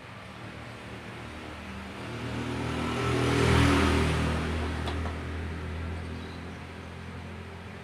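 A motor vehicle passing by on the street, its engine and tyres growing louder, peaking a little over halfway through, then fading away.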